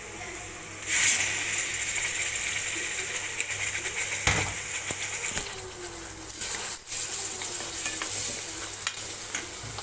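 Tomato, garlic and ginger paste hitting hot oil and fried onions in a kadai: a sudden loud sizzle starts about a second in and keeps hissing steadily. A couple of sharp knocks come partway through.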